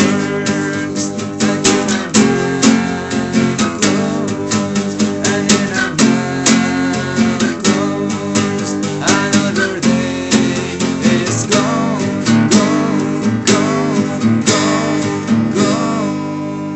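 Acoustic guitar strumming chords in a steady rhythm, with a final chord left ringing and fading near the end.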